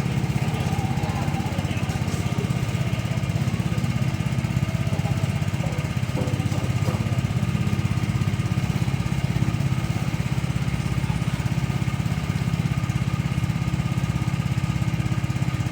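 A small engine-driven machine running steadily at a constant speed, with an even, fast chug that does not change.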